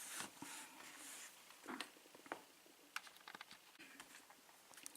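Faint handling noises of a padlock and lock-picking tools: soft rustling, then a scatter of small light metal clicks and ticks.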